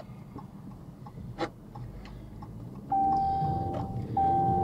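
Car turn signal clicking steadily, about two clicks a second. About three seconds in, the engine is heard speeding up, with a steady in-car warning tone that breaks off briefly once.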